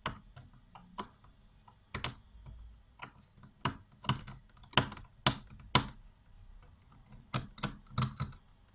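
Short, irregular scraping clicks of a tool on the metal contacts of a power-strip switch, cleaning off the burn left by arcing.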